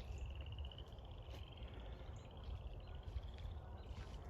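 Back-to-back high pulsed trills, each about a second long and rising slightly in pitch, from a trilling creature of the field, over a low steady rumble.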